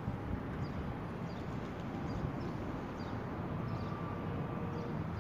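Distant road traffic rumbling steadily, with faint short high chirps of small birds now and then.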